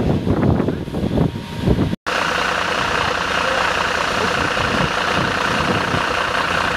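Wind buffeting the microphone for about two seconds, then, after a sudden cut, a fire-service water tanker truck running steadily, an even engine noise with a constant higher hum over it.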